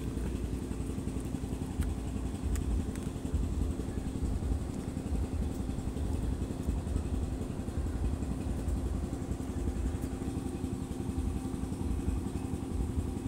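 A small engine running steadily at idle: a low, even hum.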